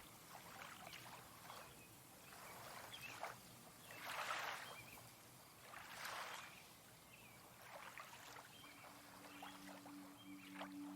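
Faint, gentle swishes of lake water, soft swells about every two seconds. Near the end a singing bowl begins to ring softly with a low steady tone.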